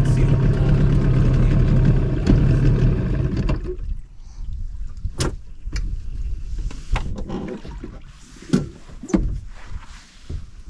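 Motorboat engine running steadily, then cut back and fading out about three and a half seconds in as the boat comes off the plane and stops. Scattered knocks and clicks follow over the quieter stretch.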